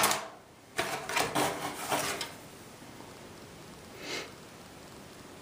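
Plastic model-kit runners rustling and clattering as they are handled, with a sharp burst at the start, a busier stretch of handling about one to two seconds in, and a short rustle near four seconds.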